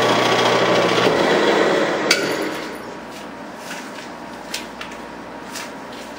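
Metal lathe running with its three-jaw chuck spinning, then switched off about two seconds in with a sharp click, winding down to a stop; a few faint metallic clicks follow.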